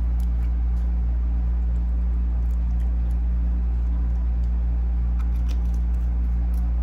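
A steady low hum dominates, with faint scattered light clicks and trickles as blue silver-cleaning liquid is poured from a small bottle into a plastic bowl.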